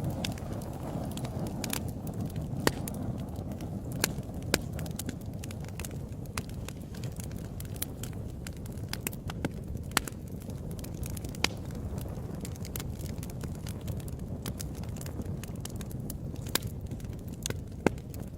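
Fire burning in a fireplace: a steady low rumble of flames with irregular crackles and pops, a few sharper snaps standing out above the rest.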